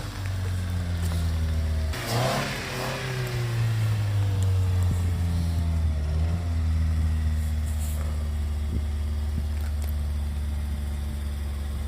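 Honda D15B VTEC four-cylinder engine in a 2000 Acura EL running at a steady idle, revved briefly about two seconds in and again around six seconds. It is a high-mileage engine that has been overheating and burning oil, with a leaking radiator.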